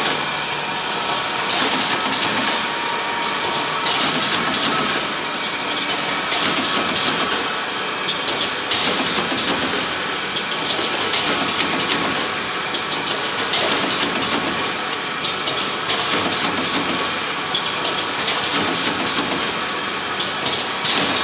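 Corrugated cardboard partition assembly machine running: a continuous mechanical clatter of many fast clicks, swelling and easing about every two seconds as it cycles.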